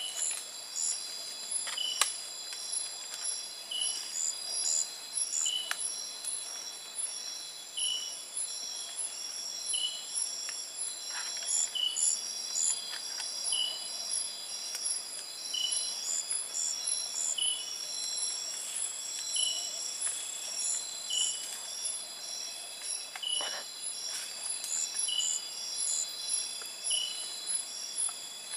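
Night rainforest insect chorus: crickets and other insects trilling at several steady high pitches at once, with a short chirp repeating about once a second. A few faint snaps or clicks are heard here and there.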